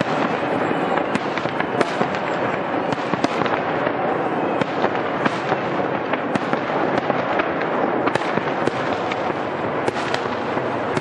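Fireworks going off in a dense, unbroken barrage: a steady crackling din with many sharp cracks scattered through it, a few a second.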